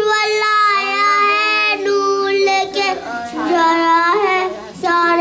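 A young girl singing a naat, an Urdu devotional hymn, solo in long held, drawn-out notes with short pauses between phrases.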